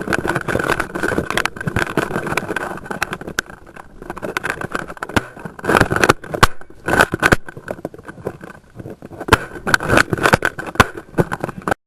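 Loud, rough rustling and movement noise with many sharp clicks and pops scattered through it and a steady high hum underneath, typical of a backyard airsoft game in progress; the sound cuts off suddenly near the end.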